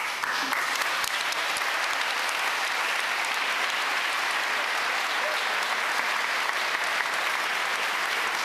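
A large crowd applauding in a reverberant church, with steady, sustained clapping that starts abruptly.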